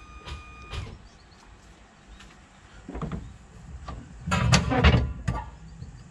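Fifth-wheel hitch in a pickup bed being worked by its release handle: a single knock about three seconds in, then a second later a loud metallic clatter and rattle, ending in a sharp click.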